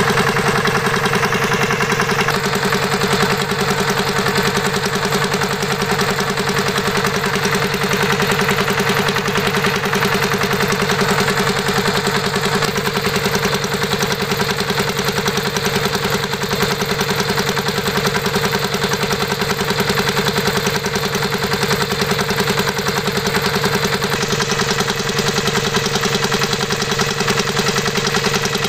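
Miniature diesel-engine water pump model running steadily at an even pitch, a steady hum with a fast, fine, even chatter.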